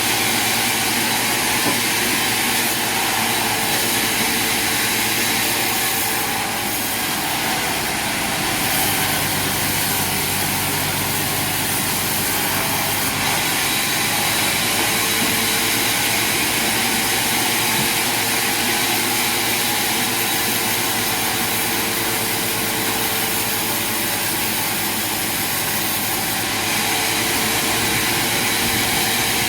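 Sawmill machinery running steadily, a constant loud mechanical noise with a faint whine that fades in and out.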